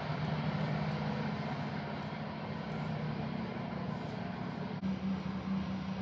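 Steady low hum over a constant rushing background, with no distinct events.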